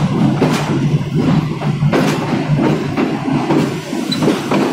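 Passenger train coach rolling along the track, heard from its open doorway: a steady rumble with a low hum, broken now and then by sharp clacks and knocks from the wheels and running gear.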